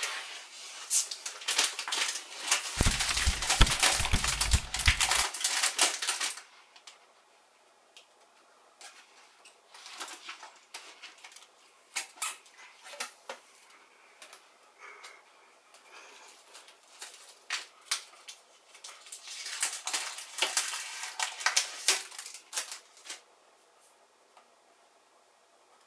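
Packaging of a new iMac being handled and unwrapped: paper and plastic wrap crinkling and rustling, with scattered clicks and taps. The dense crinkling comes in two spells, at the start and again about twenty seconds in, with sparser taps between.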